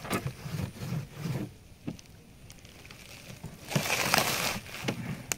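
Packaging being handled during unboxing: plastic wrap and cardboard rustling and crinkling, loudest in a burst about four seconds in, with a few light knocks and clicks.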